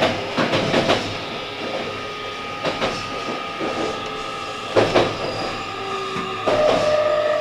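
JR Kyushu 817 series electric train running, heard from inside its cab: wheels clack over the rails in irregular clicks, the loudest pair about five seconds in, over a steady whine. A higher tone joins near the end.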